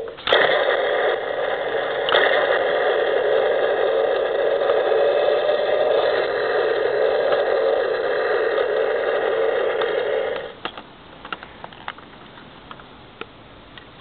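Battery-operated Thunderbird 3 toy rocket playing its rocket-engine launch sound effect: a steady rushing noise for about ten seconds that then cuts off suddenly. A few faint clicks follow.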